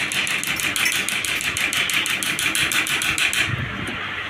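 TV short killer firing repeated pulses through its probes into a shorted gate-clock (CKV1/CKV2) track of an LED TV panel, heard as a rapid, even train of clicks that stops suddenly about three and a half seconds in. It is trying to burn open a heavy short between the tracks that causes a blank display.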